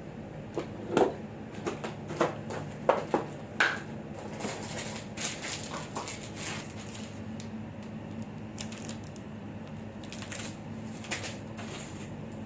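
Clinks, knocks and scrapes of utensils and bowls as ice cream sundaes are put together, with several sharp knocks in the first few seconds and a few more near the end, over a steady low hum.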